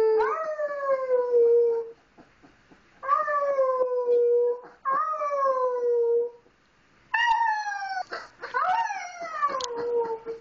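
Wolf pup howling: about five short howls, each rising briefly and then sliding slowly down in pitch over a second or two, with short gaps between them. These are the young pup's first howls.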